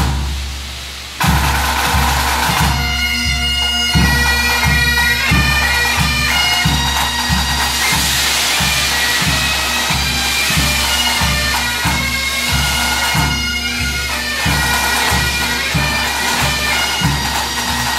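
A pipe band playing: Highland bagpipes sound their steady drones and the chanter tune over a bass drum beating about twice a second. The drum beat starts about a second in and the tune a couple of seconds later.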